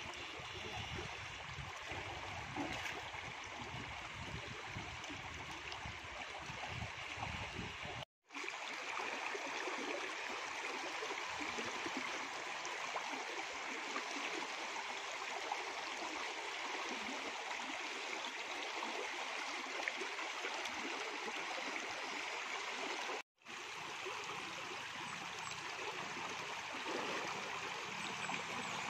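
River water flowing in a steady rush, with a low rumble during the first eight seconds or so. The sound cuts out completely twice for a split second.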